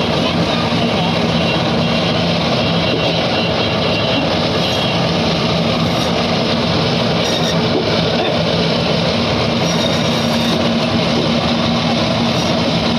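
Electric band saw (bone saw) running with a steady hum, its blade cutting through tuna as the pieces are pushed through.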